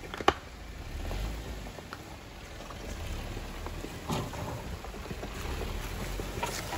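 Off-road 4x4 driving over a rough mountain track: a low, steady rumble with scattered knocks and rattles, and one sharp knock just after the start.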